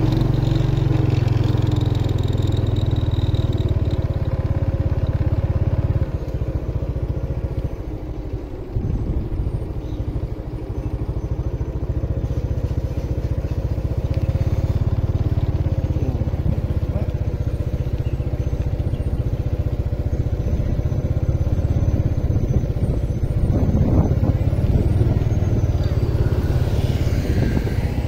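Riding on a motorbike: the engine running steadily under a heavy low rumble of wind on the microphone.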